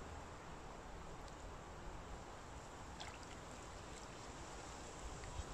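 Faint water sloshing and trickling as a fishing net holding a fish is lowered into a lake to let the fish go. There is a small splash about three seconds in.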